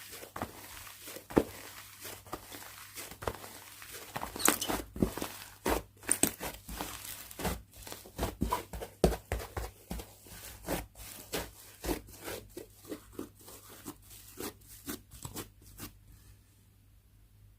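Slime being squished, pressed and stretched by hand: a dense, irregular run of sticky pops and crackles that dies away near the end.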